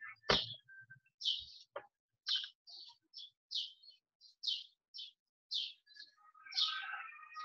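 A bird chirping over and over, short high chirps about twice a second, with a single thump just after the start.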